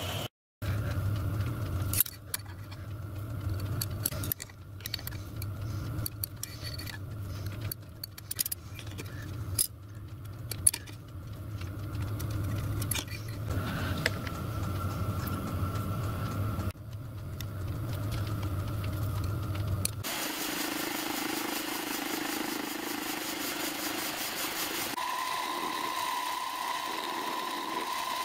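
Workshop machine motor running with a steady low hum, with scattered sharp metal clicks and taps of small steel parts being handled. Later the steady machine sound changes, ending in a steady higher-pitched whine.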